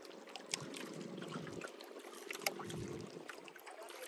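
Water lapping and trickling against the hull of a small fishing boat at sea, with scattered faint drips and ticks over a faint steady low hum.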